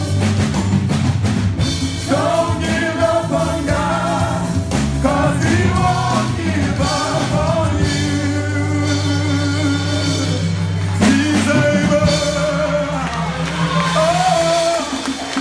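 Live gospel worship singing: a male lead and a choir singing together over sustained keyboard chords, with drums underneath.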